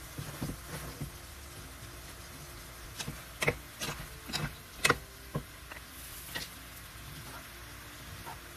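Shrimp frying with a steady sizzle in a pan. In the middle, a wooden spatula stirs them, making a quick run of clicks and scrapes against the pan.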